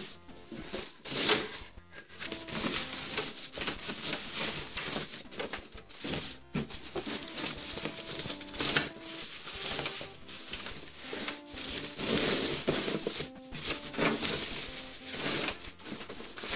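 Plastic protective bag rustling and crinkling, in uneven bursts, as an AV receiver is worked out of it. Music plays in the background.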